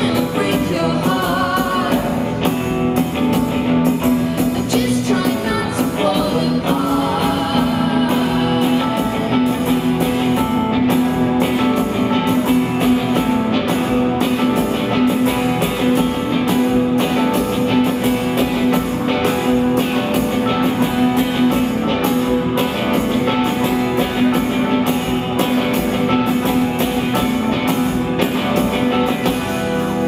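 Live rock band playing: drums, guitar and keyboards over a steady held low note, with a woman singing.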